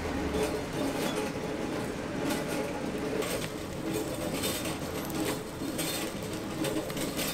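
Chestnuts tumbling inside a rotating perforated-metal drum roaster: irregular clicks and rattles over the machine's steady running rumble, the clicks thicker from about three seconds in.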